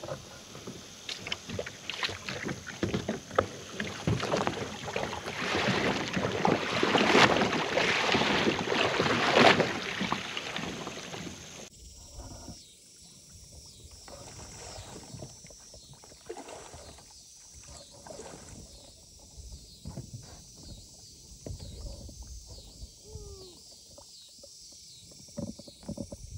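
Water splashing and sloshing around a kayak as a man rocks it while standing on its edge and bails off into the water, loudest a few seconds in. After a sudden change near the middle there are quieter, scattered splashes and lapping while he climbs back aboard.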